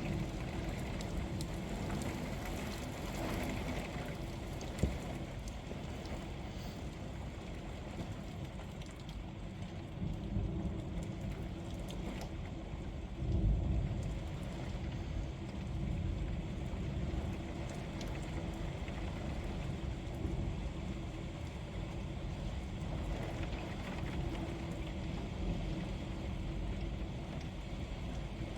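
Steady rain falling during a severe thunderstorm, with low rolls of thunder about ten and thirteen seconds in, the second the loudest.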